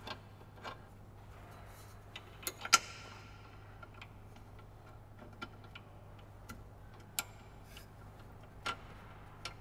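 Scattered light clicks and taps of sway bar mount bolts and brackets being handled and threaded by hand, the loudest about two and a half seconds in, over a low steady hum.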